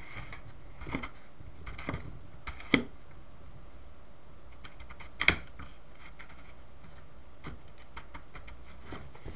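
Light, scattered clicks and knocks of plastic electric-fan parts being handled and worked on a bench, with two louder knocks about three and five seconds in.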